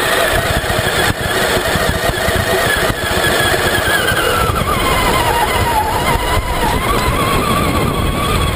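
Traxxas Summit RC truck's electric motor and drivetrain whining as it drives over sand. The whine holds high, falls about halfway through as the truck slows, then rises a little near the end, over a steady low rumble.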